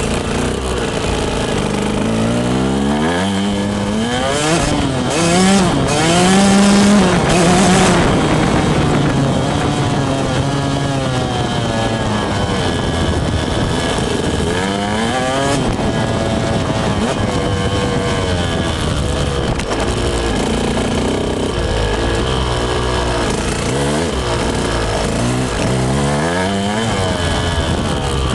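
Dirt bike engine running right at the bike-mounted microphone, its pitch rising and falling with the throttle several times. It is loudest and highest about five to eight seconds in, with shorter rises in the middle and a run of quick ones near the end.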